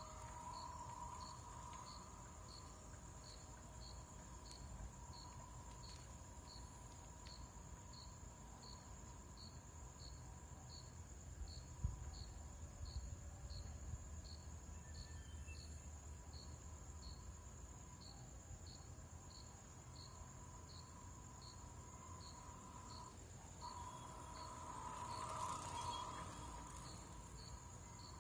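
Faint steady electronic hum of a BYD's AVAS pedestrian-warning sound, dropping out briefly and swelling near the end. Regular short high chirps come about one and a half times a second alongside it.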